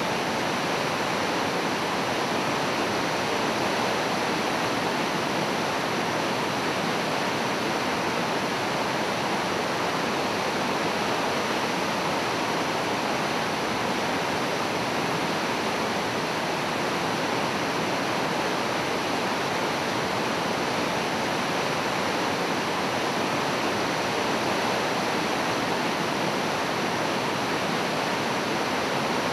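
Steady rush of the flood-swollen Oxtongue River pouring through whitewater rapids and falls, with the river running high after heavy spring rains.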